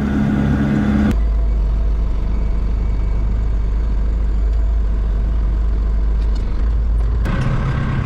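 Tractor engine running steadily. About a second in the sound switches abruptly to a deeper rumbling drone, and switches back shortly before the end.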